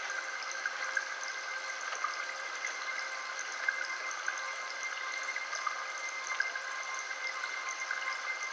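Several steady high tones held together over an even, water-like rushing hiss with faint scattered ticks: a healing-frequency sound track.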